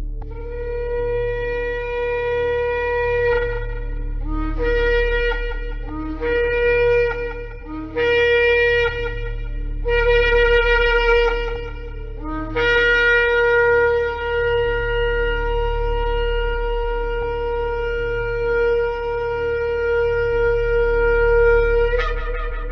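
Shofar blowing: one blast of about three seconds, then four shorter blasts that each step up from a lower note, then a long held blast of about nine seconds that jumps up in pitch at its end. A steady low hum lies beneath.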